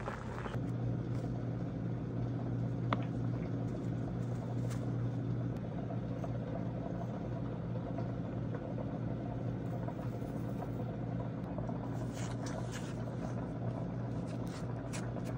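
A steady low machine hum with a few faint overtones, holding at one pitch, with a few light clicks near the end.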